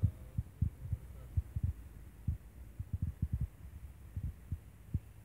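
A vehicle driving over a rough gravel road, heard from inside the cab: a low steady hum broken by irregular dull thumps and knocks, several a second, as it jolts over the stones.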